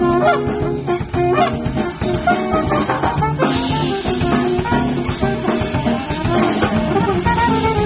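Latin jazz played live by a trio: trumpet carrying the melody over acoustic guitar chords and a drum kit with cymbals.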